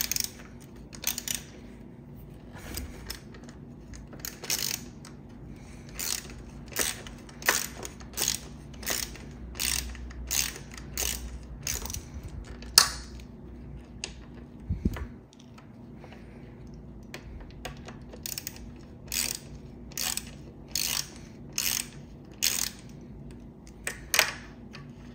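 Ratcheting screwdriver clicking in short runs about every three-quarters of a second as a brake caliper mounting bolt is unscrewed. The clicks pause for a few seconds midway, with a single low bump, then resume.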